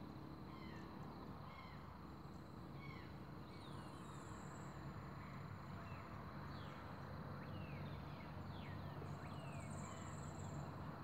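Outdoor insect chorus: a steady high-pitched drone with many short falling chirps, and a higher buzzy trill about four seconds in and again near the end, over a faint low hum.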